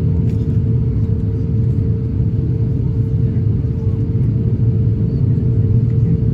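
Steady low rumble inside an Airbus A350-1000's cabin on the ground after landing, with a constant steady hum over it.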